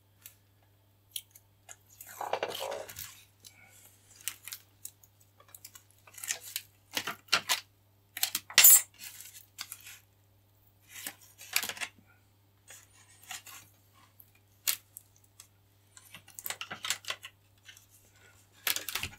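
Scattered light clicks, rustles and a few sharp crackles of small repair materials being handled by hand at a workbench, the sharpest crackle about halfway through.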